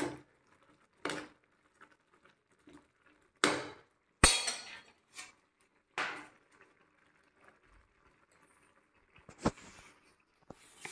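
Spatula knocking and scraping against a kadhai of Maggi noodles on a gas stove, then a perforated steel lid set on the pan with a clink. A handful of separate knocks and clinks, the sharpest about four seconds in.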